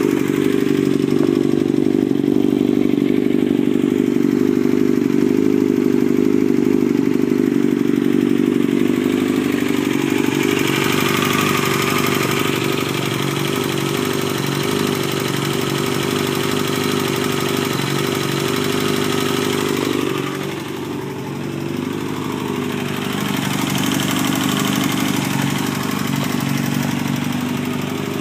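2000 Yamaha R6's inline-four engine running warm at idle, steady, carrying a weird noise that is not yet identified. It briefly drops in level about twenty seconds in.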